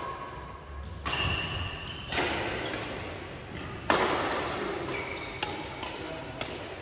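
Badminton rackets striking a shuttlecock in a doubles rally: a handful of sharp hits, the loudest about four seconds in, ringing on in the echo of a large hall.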